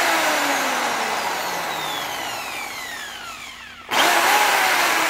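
Ryobi D620H corded hammer drill run free in the air: the motor whines up sharply, then its pitch and level fall away over a few seconds, and it is triggered again about four seconds in. The whine is smooth with no hammering rattle; the owner finds the hammer mode makes no difference, as if the hammer action does not work.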